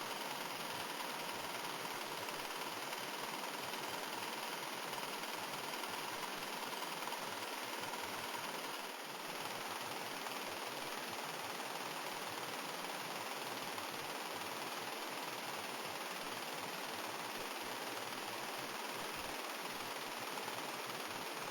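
Small single-cylinder four-stroke model engine with a glass cylinder and rotary valve, running steadily with a hissing, even sound.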